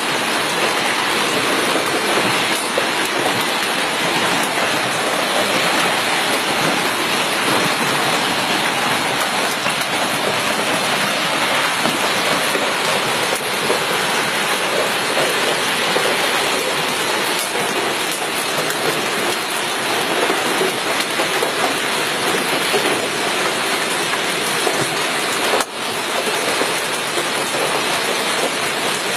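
Hail and heavy rain hitting surfaces in a dense, steady clatter, broken by a momentary drop in level near the end.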